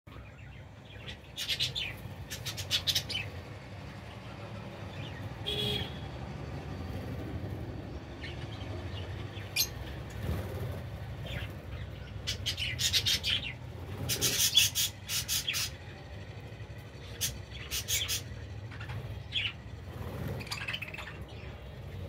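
A flock of budgerigars (budgies) chirping and chattering in repeated spells of quick, high chirps, over a steady low hum.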